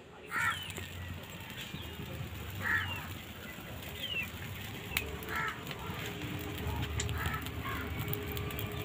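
Birds calling: four short, harsh, crow-like caws about two seconds apart and a few short high chirps, over the low rumble and faint crackles of a small twig fire singeing a plucked chicken to burn off its fine feathers.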